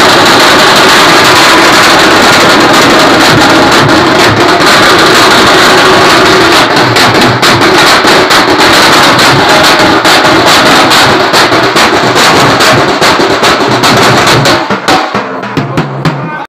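Teen maar drum band playing loud, fast, dense drumming on large drums beaten with sticks; the drumming thins out and drops in level about a second and a half before the end.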